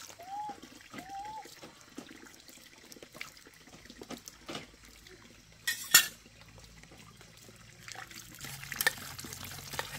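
Water trickling with scattered clinks and knocks of dishes, and a sharp clatter about six seconds in. Three short chirps sound near the start.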